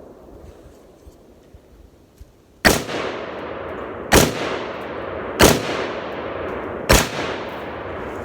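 Four gunshots from a firearm, fired one at a time about a second and a half apart, each followed by an echoing tail.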